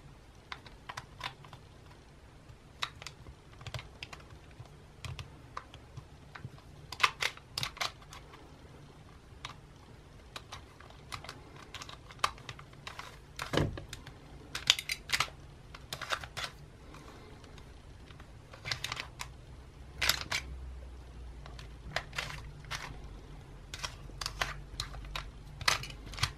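Plastic Fanxin Nautilus twisty puzzle being turned by hand: irregular clicks and clacks of its plastic pieces as the layers are twisted, coming in short clusters.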